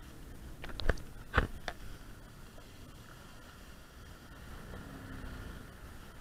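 Low, steady rumble of a jet ski running on choppy sea water, with a cluster of sharp knocks about a second in.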